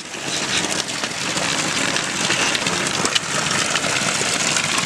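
Streams of water pouring from pipe spouts and splashing onto a wet concrete floor: a steady, even rushing splash.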